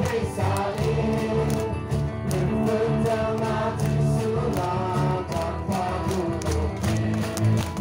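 A crowd singing together with an amplified live band, many voices carrying a melody over a steady beat.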